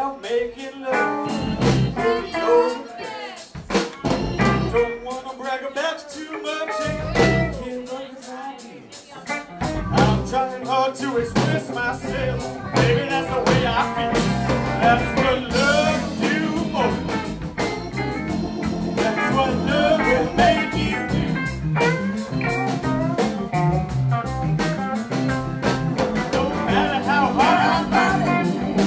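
Live blues band playing: electric guitar lines over electric bass and a drum kit. The bass and drums drop out in short breaks during the first ten seconds, then the full band plays on.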